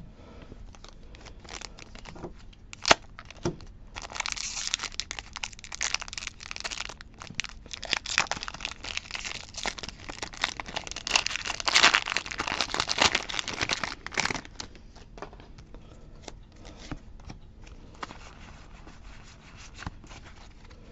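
A Pokémon Fusion Strike foil booster pack being torn open and crinkled by hand: a dense crackle for about ten seconds, loudest past the middle. A couple of sharp clicks come before it, and lighter rustling and clicks follow.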